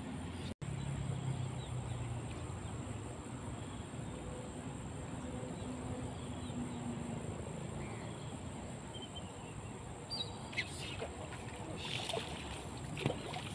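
Steady outdoor background noise with a low rumble and a few faint chirps. Near the end come a handful of short rustles and clicks.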